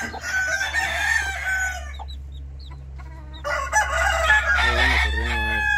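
Rooster crowing twice, two long crows of about two seconds each with a pause of about a second and a half between, over a steady low hum.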